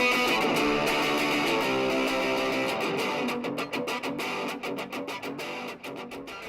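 Guitar music with strummed chords. The strums get sharper and more distinct about halfway through, and the music slowly fades.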